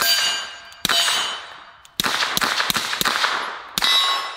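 Staccato P 2011 pistol fired suppressed in a quick string of about seven shots. Each sharp report is followed by a ringing metallic clang that dies away over a second or so, typical of hits on a steel target.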